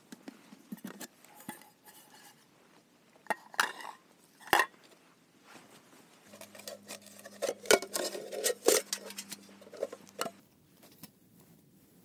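Metal camping cookware knocking and clinking as pots are unpacked and set down on dry leaves. There are a few sharp clinks around four seconds in and a busier cluster of knocks and clinks around eight to nine seconds.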